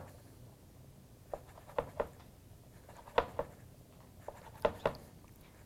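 Chef's knife cutting down through a stack of corn tortillas and striking a plastic cutting board: sharp knocks at uneven intervals, several coming in quick pairs.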